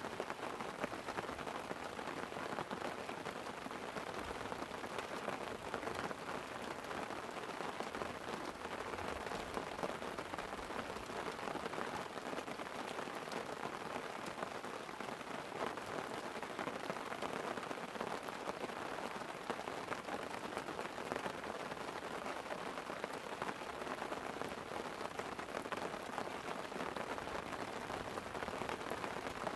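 Light rain pattering steadily on a tent: an even hiss of many small drop ticks.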